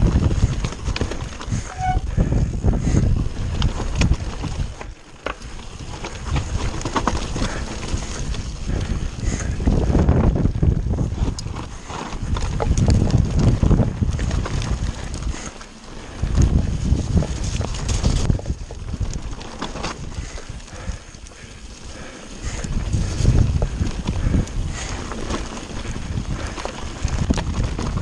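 Kona mountain bike descending a rough, rocky trail at speed: tyres crunching and knocking over stones, the bike rattling over the impacts, with wind buffeting the handlebar camera's microphone. The noise eases briefly a few times before picking up again.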